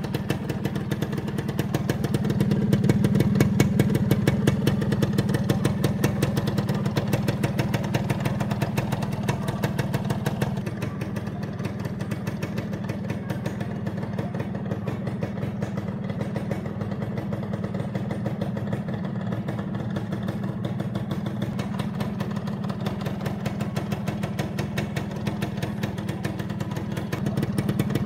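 Suzuki Satria 120's two-stroke single-cylinder engine idling steadily, a little louder for a few seconds near the start.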